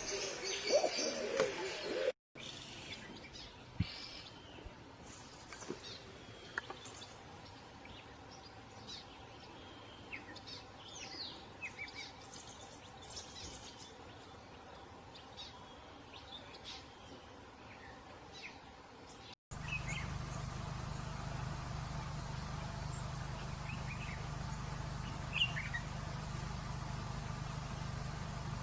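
Birds chirping, with scattered short high calls. Partway through, the recording changes and a steady low hum runs under the chirps.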